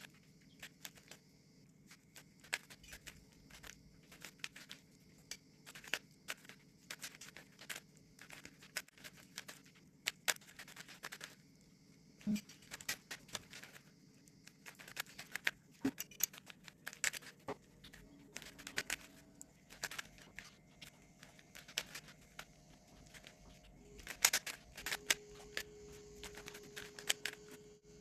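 Rubik's cube layers being twisted by hand: irregular plastic clicks and clacks in quick runs with short pauses. A faint steady hum comes in near the end.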